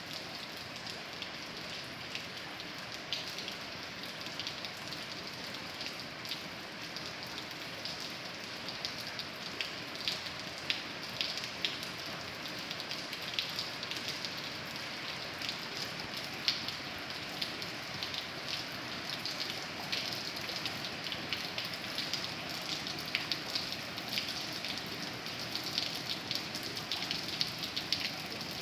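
Steady rain falling, with many separate sharp drop hits over an even hiss; the drop hits grow more frequent after about ten seconds.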